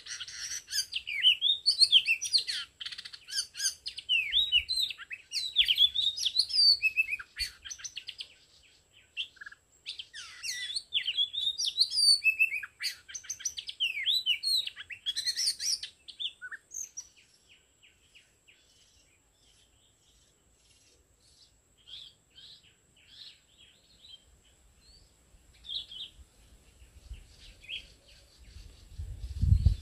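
Oriental magpie-robin singing: a fast, dense run of varied whistles and warbles for about the first half, then sparser single notes and short phrases. A dull low thump comes right at the end.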